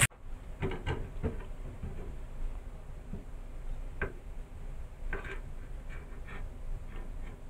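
A kitchen knife slitting a yardlong bean lengthwise on a plastic cutting board: scattered light taps and short scrapes of the blade against the board. It opens with a single sharp click.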